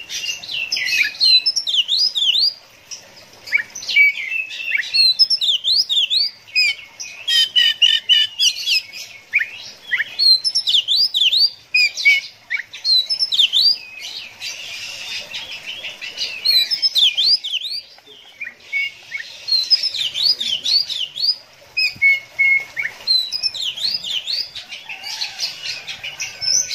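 Oriental magpie-robin singing: rapid runs of high, sweeping whistled notes in lively phrases, broken by a few short pauses.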